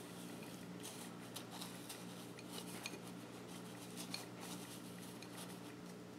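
Crushed Jolly Rancher hard-candy pieces faintly rattling and scraping against a ceramic bowl as a syrup-coated grape on a wooden skewer is rolled through them, with scattered small clicks.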